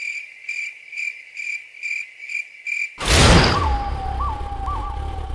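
Cricket chirping sound effect, a steady rhythm of about two to three chirps a second, the stock gag for an awkward silence. About three seconds in it cuts off with a sudden loud whoosh, followed by a low rumble.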